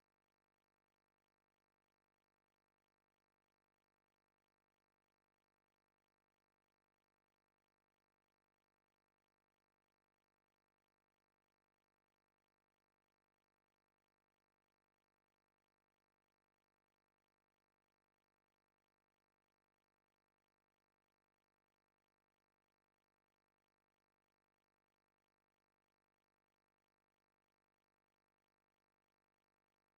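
Near silence: the audio track is essentially empty, with no audible sound.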